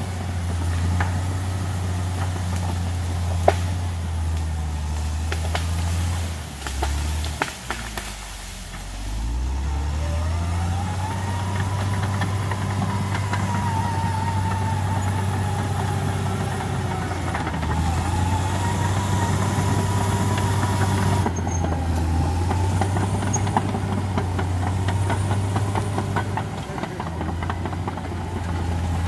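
Caterpillar D6R XL bulldozer's diesel engine running steadily under load. About seven seconds in, the revs sag, then pull back up, and a high whine rises and holds for around ten seconds. Scattered knocks and clicks are heard throughout.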